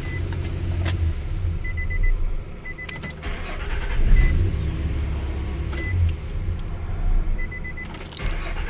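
Nissan Frontier pickup's engine starting and running on a newly replaced ignition switch, which shows the intermittent no-start is fixed. A steady low rumble has several sharp clicks or knocks through it.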